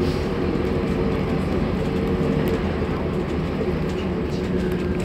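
Scania N230UD double-decker bus heard from inside the upper deck: the five-cylinder diesel engine and drivetrain running with a steady drone and low road rumble.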